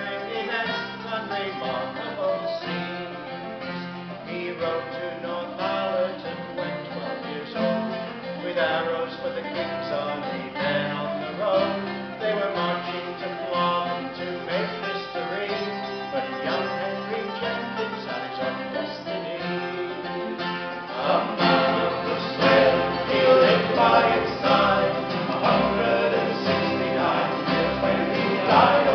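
Acoustic folk band playing: acoustic guitars picked and strummed over an upright double bass, with singing. About two-thirds of the way through the music grows fuller and louder.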